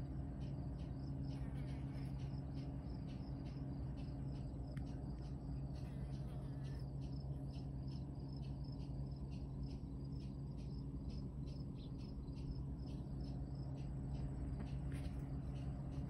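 Insects chirping steadily in short, evenly spaced high-pitched pulses, about three a second, over a low steady hum.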